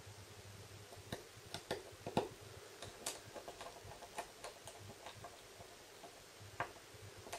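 Light, irregular clicks and ticks of a small precision screwdriver and tiny screws against the Galaxy S4's plastic midframe as the bezel screws are fitted. The clicks come in a quick cluster for a few seconds, then once or twice more near the end.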